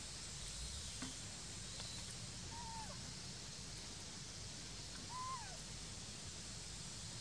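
Two short whistle-like animal calls about two and a half seconds apart, each holding one pitch and then dropping at the end, over a steady hiss of forest ambience.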